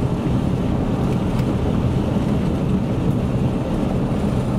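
Steady low rumble of wind on the microphone, with a vehicle's engine running under it.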